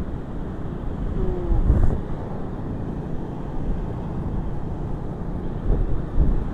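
Wind buffeting the microphone as a steady low rumble, with stronger gusts about two seconds in and again near the end.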